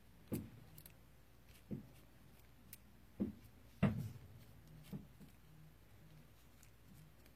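Faint, scattered taps and knocks, about six in all, the loudest about four seconds in: a stick being dabbed against hot glue on rocks to fluff it up.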